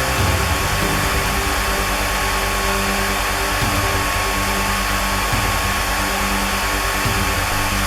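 Handheld hair dryer blowing steadily on high, a constant rushing air noise with a thin steady whine.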